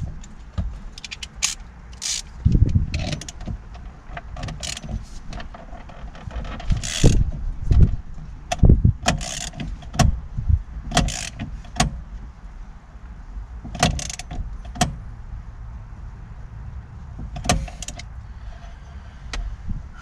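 Irregular clicks, clinks and knocks of small metal parts and hand tools being handled while fitting a steering wheel hub in a car.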